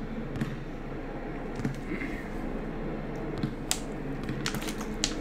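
Basketball bouncing on a hardwood gym court: a few sharp knocks, mostly in the second half, over a low steady hum.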